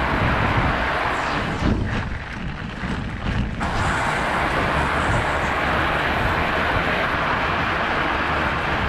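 Steady rushing noise of a fat bike's wide knobby tyres rolling over snow-covered lake ice. It thins for a moment about two seconds in, then returns.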